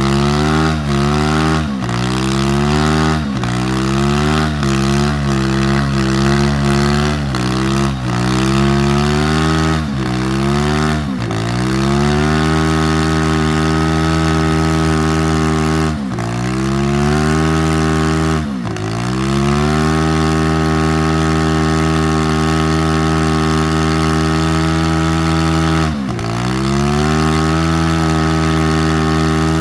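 Three-wheeler engine revving hard during a burnout: quick repeated throttle blips for the first ten seconds or so, then held at high revs, briefly dropping and climbing back three times.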